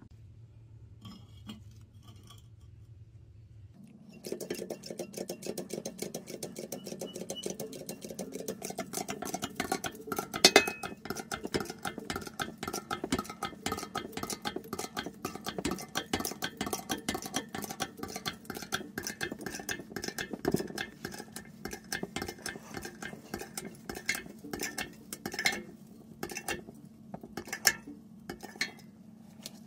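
Thin-walled metal part crushed under the ram of a bottle-jack hydraulic press: after a few quiet seconds, a dense run of crackling, clicking and creaking as the metal buckles and folds, with a sharp crack about ten seconds in and a few more later.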